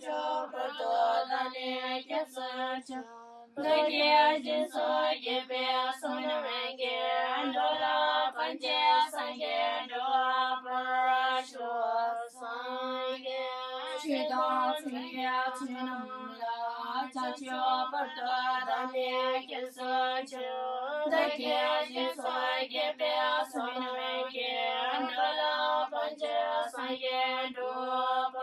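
Young female voices chanting a Buddhist prayer in unison: a short sung phrase repeated over and over, held on a steady drone-like note.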